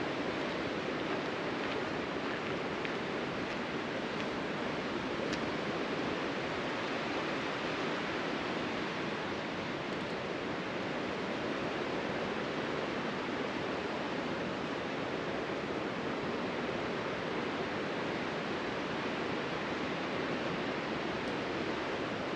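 Steady, even outdoor rushing noise, like wind or distant running water, with no distinct events.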